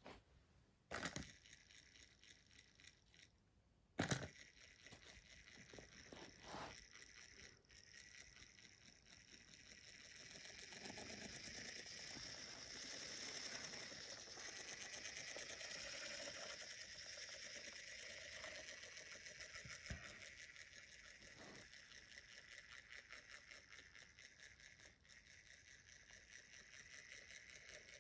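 Battery-powered toy James engine's small electric motor and gears whirring steadily as it climbs a plastic ramp on wooden track, after two sharp clicks in the first four seconds.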